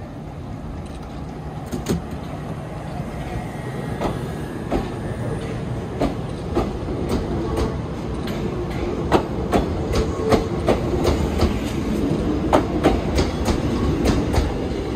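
Yoro Railway electric train pulling along the platform, its wheels clicking over the rail joints under a steady rumble. The clicks come closer together and louder as it gathers speed.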